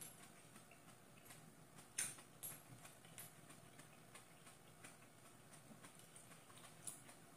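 Near silence: room tone with a few faint scattered ticks, the sharpest about two seconds in.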